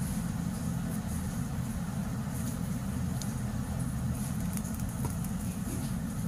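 Steady low rumbling hum of machinery, with a few faint ticks.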